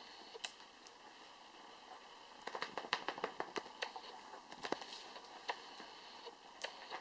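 Kittens scrambling and play-fighting on a wicker chair: a run of quick scratchy clicks and crackles from claws and paws on the woven wicker and cushion, thickest in a flurry from about two and a half seconds in to five seconds.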